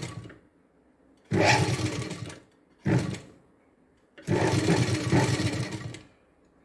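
Sewing machine stitching a dart in blouse fabric in short runs, stopping and starting: a run trails off just after the start, then three more follow, one about a second long, one brief, and a last of about two seconds.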